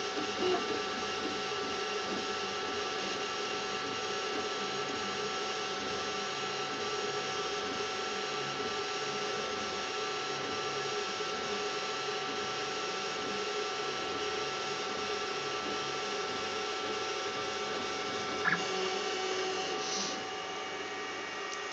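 Zortrax M200 3D printer running a print: a steady whir of its fans and motors with a few held tones. A brief click sounds near the end, and the sound drops a little just after.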